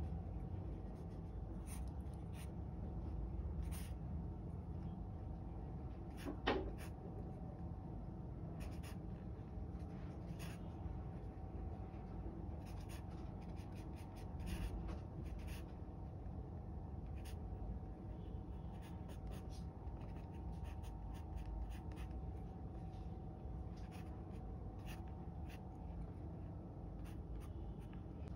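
Graphite pencil sketching on paper: many short scratchy strokes, irregular in timing, with one sharper knock about six seconds in.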